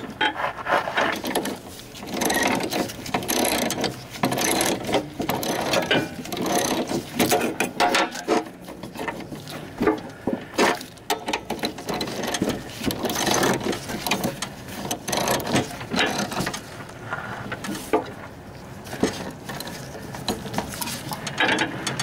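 Metal clicking and clinking in quick irregular runs as the idler pulley, its bracket and mounting bolt are worked into place on a riding mower's cutting deck.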